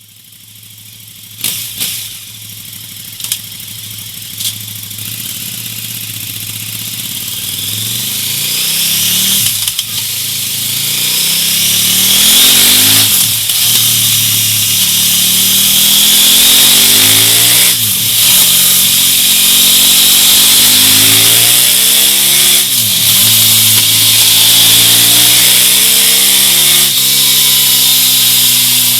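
KTM 1290 Super Duke R V-twin engine with an aftermarket exhaust, starting out quiet with a few sharp pops in the first seconds, then revved hard several times, the pitch rising and dropping back again and again.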